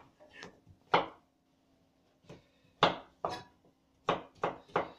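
Chef's knife chopping a peeled cucumber on a plastic cutting board: separate sharp knocks, spaced out at first and coming faster in the last second.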